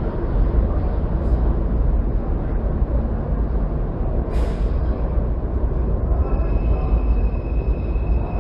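NYC subway station: a steady low rumble of subway trains. About four and a half seconds in there is a short burst of air hiss, and about six seconds in a steady high-pitched whine comes in and holds.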